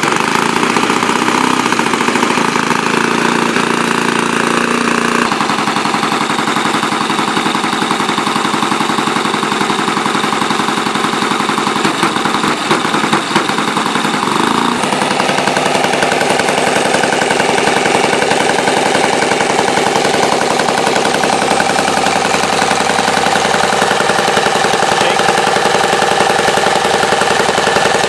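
NGH GF38 38cc four-stroke petrol engine on a model aircraft running with its propeller spinning, on its first run-in on a 25:1 fuel-oil mix. It runs steadily, changes speed about five seconds in and again about fifteen seconds in, and runs a little unevenly for a moment around twelve to thirteen seconds.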